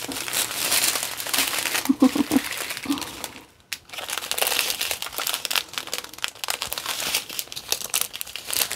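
Strip of small plastic drill bags from a diamond-painting kit crinkling as it is handled and shuffled, with irregular crackles and a brief pause about three and a half seconds in.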